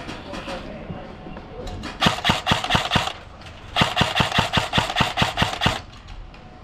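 Airsoft rifle firing two full-auto bursts, about a second and then about two seconds long, at roughly seven shots a second.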